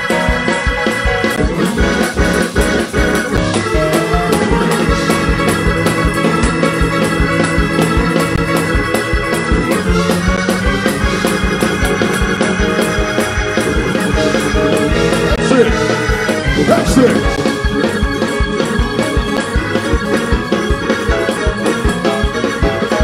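Fast Pentecostal praise-break music: an organ playing sustained chords over a quick, steady beat.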